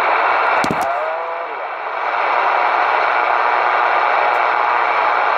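CB radio receiving through its speaker: a loud, steady rush of static starts suddenly, with warbling, garbled whistles of distant stations' voices in it about a second in. There is a sharp click early on.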